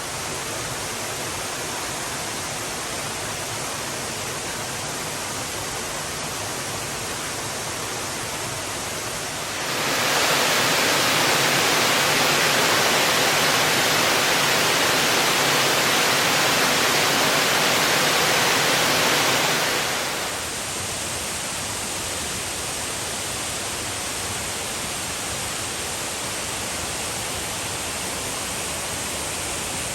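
A 30-metre waterfall's water rushing steadily. It swells louder and brighter for about ten seconds in the middle, then drops back to the same level.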